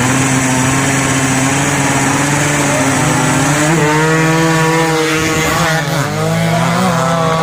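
Racing motorcycle engines running hard at high revs. Their pitch holds steady at first, then rises and dips several times through the second half.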